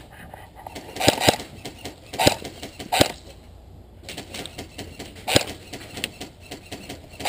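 Airsoft guns firing: a string of sharp pops, irregularly spaced, with the loudest about a second in and others at about two, three and five and a half seconds.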